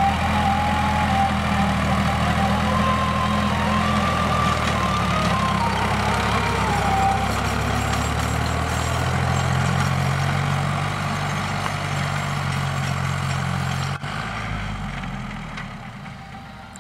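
Sonalika tractor's diesel engine running steadily as it pulls a rotavator through a field, with a wavering high whine over the engine in the first half. The sound drops away about fourteen seconds in.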